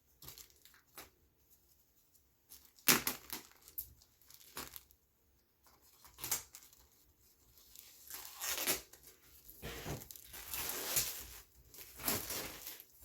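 Packaging being torn open and crinkled by hand, in separate rips starting about three seconds in and coming closer together near the end.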